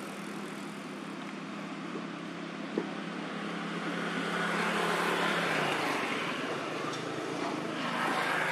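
Motor vehicle engine humming steadily, stopping about two-thirds of the way in, over a wash of road or engine noise that swells in the middle and again near the end.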